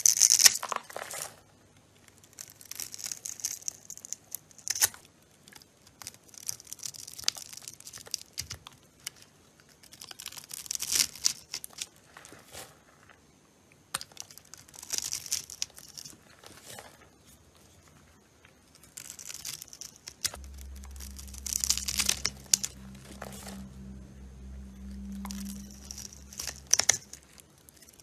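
Blade cutting and carving dry bar soap: crisp, crumbly scraping in separate passes every few seconds, each a second or two long with a few sharp clicks as pieces break away.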